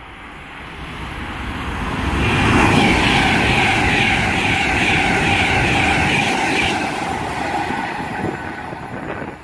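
Class 390 Pendolino electric train passing through the station at speed: it builds up over the first couple of seconds, runs loud with a steady high whine for about four seconds, then fades away.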